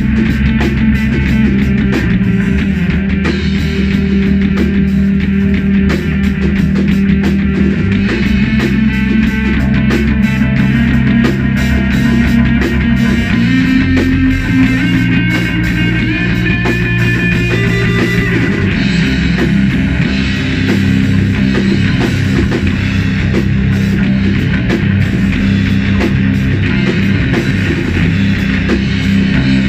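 Live stoner-doom rock jam: electric guitar through Marshall amp stacks playing slow, sustained low riffs over a drum kit, loud and continuous, with the low notes changing every few seconds.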